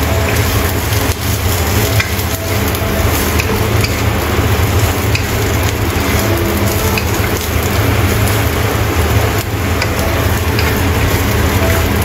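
Celery, carrot and shredded dried squid sizzling in a hot wok as they are stir-fried, with scattered knocks and scrapes of a wooden spatula against the pan.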